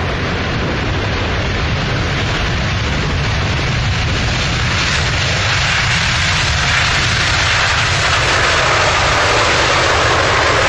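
Boeing 777 jet engines running loud during its landing roll on a wet runway, a steady rushing noise that slowly grows louder and brighter.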